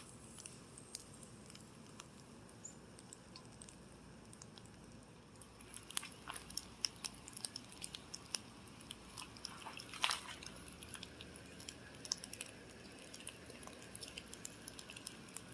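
Bratwursts cooking on a small charcoal grill, their fat crackling and popping faintly in scattered short pops that grow busier about halfway through.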